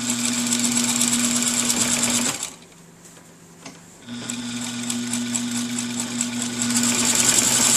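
1930s Universal electric sewing machine running and stitching, its motor humming with a fast, even needle patter, very smooth. It stops about two seconds in and starts again about four seconds in.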